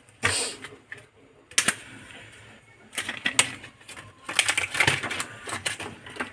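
Irregular clusters of sharp plastic clicks and clatters from a laptop's opened case and parts being handled during repair.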